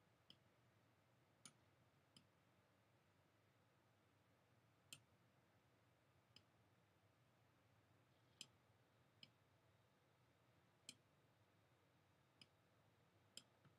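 Near silence broken by about ten faint, single computer mouse clicks, spaced irregularly a second or two apart.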